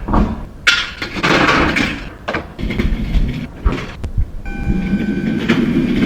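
Loud equipment noise: irregular clattering and scraping with knocks, then, about four and a half seconds in, a machine starts running with a steady whine over a low hum.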